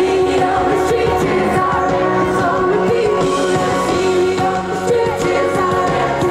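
Live pop song played loud through a concert PA: a woman singing lead with held, gliding notes over a live band.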